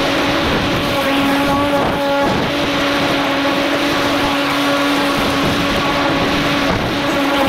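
Ego 56-volt cordless electric lawn mower running while cutting grass: a steady motor-and-blade hum and whine over the rush of the spinning blade in the grass.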